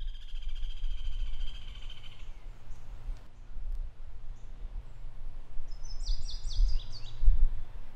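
Outdoor ambience: a steady low rumble with birds singing, a long rapid trill in the first two seconds and a quick run of high chirps around six seconds in.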